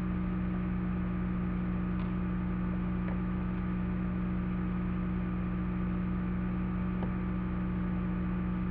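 Steady low hum with a hiss, unchanging throughout, and a few faint light clicks of small plastic toys being handled, about two, three and seven seconds in.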